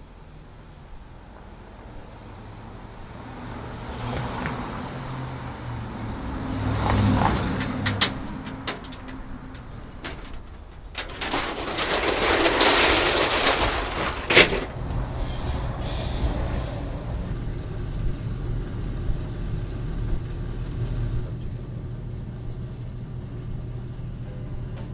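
Night-time city street sounds with a vehicle passing, then a steel roll-down security gate rattling loudly for about three seconds as it is raised, ending in a sharp clank.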